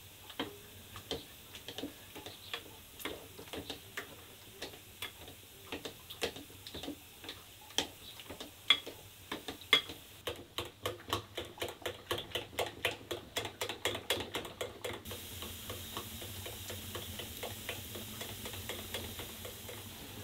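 A utensil stirring and beating a mixture in a glass bowl, clinking against the glass. The clinks are irregular at first, then come in a fast even run of about six strokes a second for about five seconds, and give way to a steadier hiss for the last few seconds.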